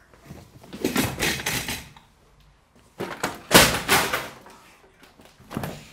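Three bursts of banging and clattering as props and furniture are knocked about. The loudest comes about three and a half seconds in.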